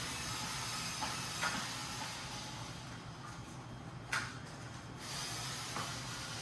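A steady hiss over a low hum, broken by a few short sharp clicks or knocks, the sharpest about four seconds in.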